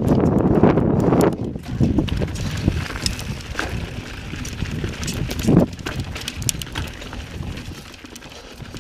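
Mountain bike being ridden over slickrock and rocky dirt trail: its knobby tyres rumble and the bike rattles, loudest in the first second or so, then quieter with scattered knocks as the wheels hit rocks, one sharp knock a little past halfway.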